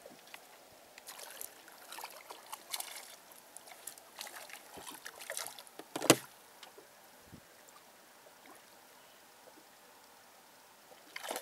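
Water slapping and trickling against the hull of a small fishing boat, in short irregular splashes, with one sharp knock about six seconds in.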